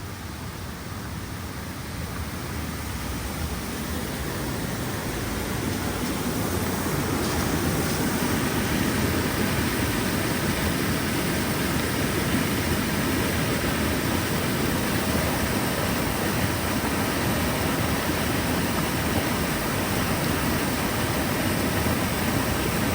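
Ōtaki waterfall's water rushing and crashing, a loud even roar that swells over the first several seconds and then holds steady.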